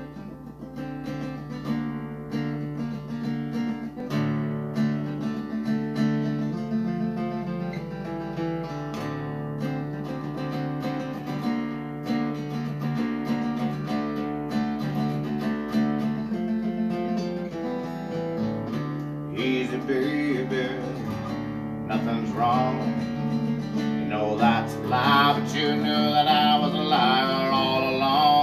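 Acoustic guitar and mandolin playing a picked instrumental intro together. A man's singing voice starts in over them near the end.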